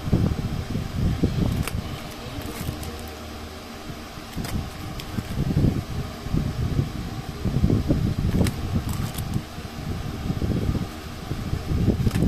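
Low, uneven rumble of moving air on the microphone, with a few brief crinkles of the plastic bags as bagged phone covers are handled.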